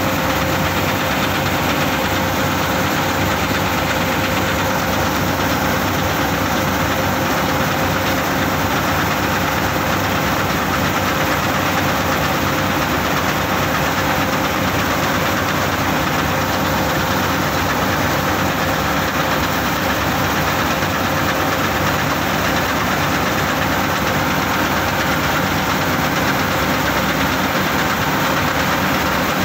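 CLAAS Crop Tiger 30 Terra Trac combine harvester running steadily while its unloading auger discharges paddy grain, the engine and machinery holding one constant pitch and level.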